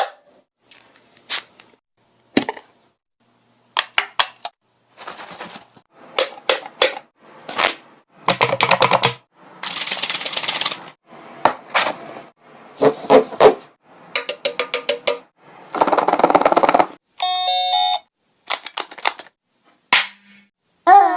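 A rapid string of short, separate sound effects: sharp clicks and pops and hissy, noisy bursts, cut one after another with brief silences between. Near the end comes a stepped, beep-like electronic tone.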